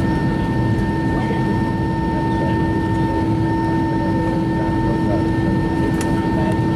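Steady cabin noise of an Airbus A320 taxiing at idle power, heard from inside the cabin: a low rumble with a steady hum and a higher whine held throughout.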